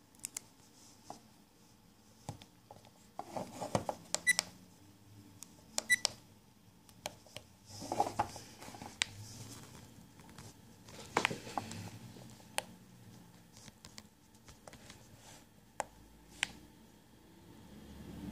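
Button clicks and handling noise from a small action camera as its menu is stepped through. There are two short beeps from the camera about four and six seconds in.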